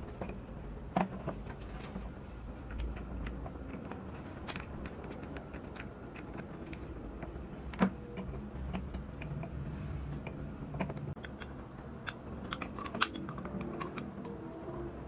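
Parts of a toy MAN TGS tipper truck clicking and tapping as they are handled and fitted together by hand: scattered light clicks, with a sharper one about eight seconds in.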